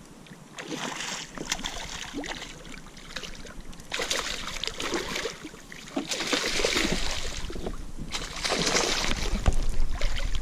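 Hooked northern pike thrashing and splashing at the surface beside a kayak in about four bursts, ending as it is scooped into a landing net.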